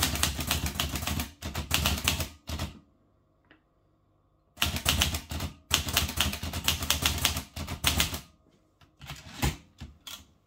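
Olivetti Lettera 32 manual portable typewriter being typed on fast: two runs of rapid keystrokes with a pause of about two seconds between them. A few separate strokes follow, and near the end the carriage is returned by its lever.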